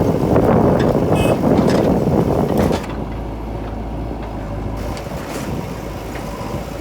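Heavy diesel engine of earth-moving machinery running, loud and rough for about the first three seconds, then settling to a steadier low hum.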